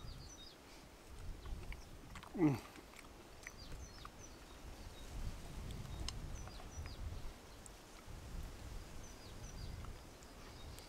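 A man tasting stew, giving one falling 'mmm' of appreciation about two and a half seconds in, between quiet sounds of eating. Small birds chirp faintly in the background.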